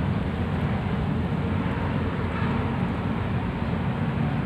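Steady outdoor background noise: a low, fluctuating rumble under an even hiss, with no distinct event standing out.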